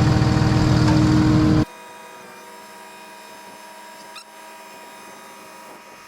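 Concrete pump truck's engine running with a steady drone. It cuts off abruptly about a second and a half in, leaving a much quieter steady hum. A brief, wavering high-pitched sound comes about four seconds in.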